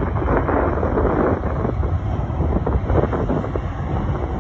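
Jet airliner's engines at takeoff power on its takeoff roll, a low, rough roar, mixed with wind buffeting the microphone.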